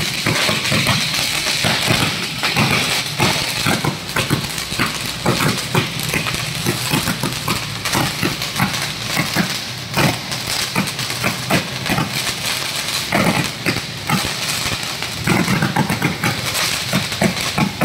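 Ground fountain firework spraying sparks, with a steady hiss and dense, rapid, irregular crackling.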